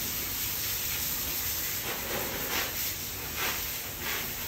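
Steady hiss of water running from a garden hose onto a wet tiled floor, with a few soft splashes of a sponge being worked in a bucket of soapy water.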